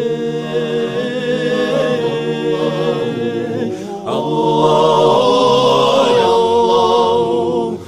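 Wordless a cappella vocal interlude of a nasheed: layered voices hold long notes in harmony over two phrases, the second louder.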